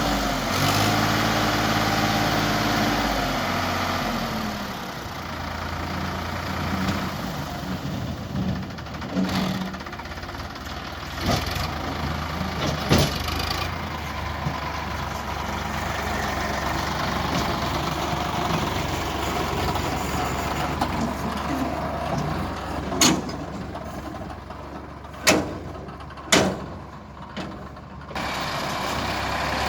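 Heavy diesel machinery engine running, its revs rising and falling in the first few seconds, then settling to a steady low running sound. Several sharp knocks stand out later.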